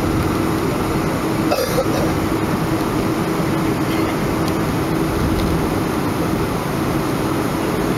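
Steady cabin noise of a Boeing 737-500 taxiing, its CFM56 engines running at taxi power with a steady hum tone. A short noise comes about a second and a half in.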